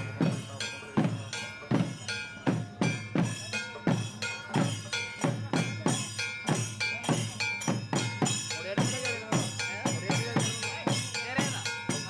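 Instrumental passage of devotional music: a hand drum plays a steady rhythm of about two strokes a second, each stroke sliding down in pitch, over sustained accompanying tones.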